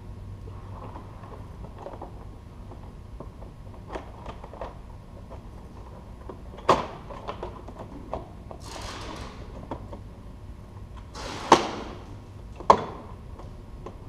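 Plastic body panels on an ATV being fitted back on by hand: a sharp snap or knock about seven seconds in and two more near the end, with scraping and rustling between, over a steady low hum.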